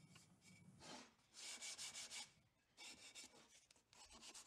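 Fine sandpaper rubbed by hand over the edges of a cedar box: faint, quick back-and-forth scratching strokes in several short bursts with brief pauses between.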